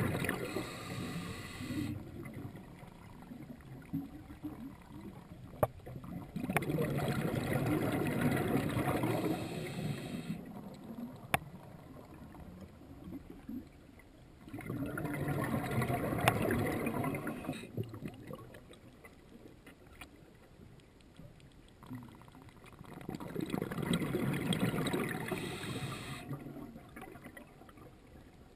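Scuba diver's breathing heard underwater: the regulator releases exhaled bubbles in bubbling bursts of about three seconds, four times, roughly eight seconds apart, with quieter pauses between. A few single sharp clicks fall between the breaths.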